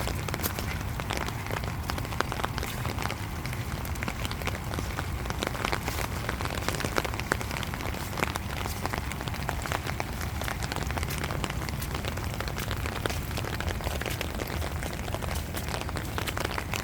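Steady rain falling, with many separate drops hitting a surface close by over a low, even rumble.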